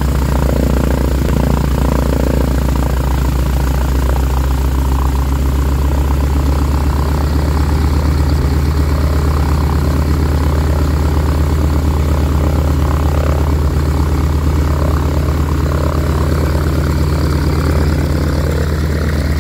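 Boeing Stearman biplane's radial engine idling on the ground, a loud, steady low drone that holds the same pitch.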